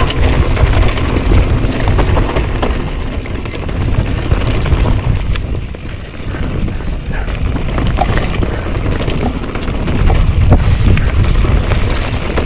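Mountain bike rolling fast down a loose, rocky dirt trail, heard from a camera mounted on the rider: a heavy wind rumble on the microphone that swells and dips, with tyres crunching over gravel and the bike rattling in scattered clicks.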